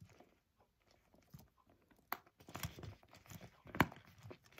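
Handling sounds of a small quilted leather clutch with a metal chain strap. It is faint and mostly still at first, then from about halfway comes a run of soft rustles and clicks as the flap is opened, with the sharpest click near the end.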